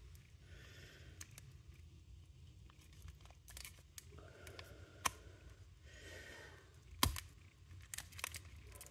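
Foil trading-card pack being picked at and torn open by hand: faint crinkling and tearing with scattered small clicks, the sharpest about seven seconds in.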